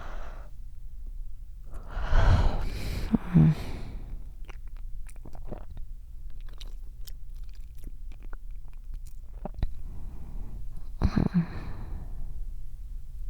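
Close-miked ASMR breathing: two long breaths, about two seconds in and about eleven seconds in, the first with a short hum of voice at its end. Soft wet mouth clicks come in between.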